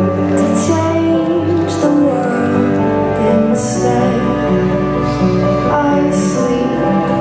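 Slow, tender song: a woman singing over soft, sustained accompaniment with a steady low bass line.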